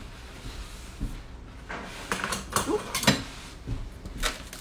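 Short knocks and clatter of kitchen things being picked up and set down as a wooden cutting board and counter are cleared, a string of sharp clicks and taps with the loudest knock about three seconds in.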